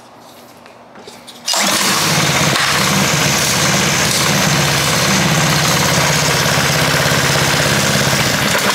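A Honda GCV single-cylinder engine on a gas pressure washer starts suddenly about a second and a half in and runs steadily at speed. The pump has no water supply connected. The engine winds down at the very end as it is switched off.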